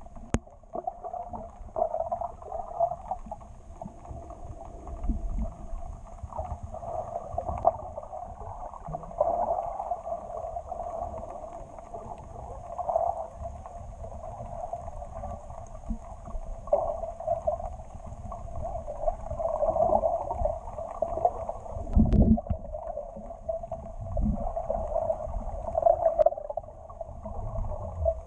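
Muffled underwater sound from a camera held under the water while snorkelling: water gurgling and sloshing against the housing, with one heavy thump about three-quarters of the way through.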